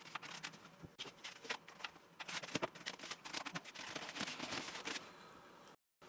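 Handling noise from the model airplane being moved and turned over on the bench: a quick run of small clicks, taps and rustles, dying down to quiet room tone about five seconds in.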